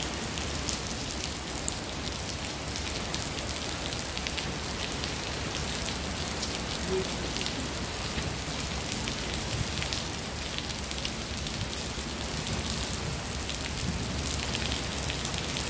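Steady rain falling on wet paving stones, a dense hiss full of small drop ticks, with water running off an overhead roof edge and splashing onto the tiles close by.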